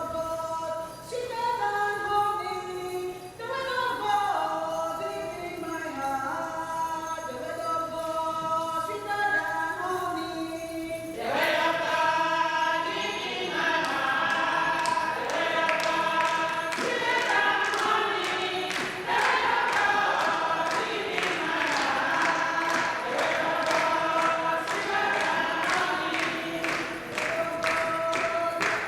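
A choir singing in harmony, growing fuller and louder about eleven seconds in and joined by a steady beat from then on.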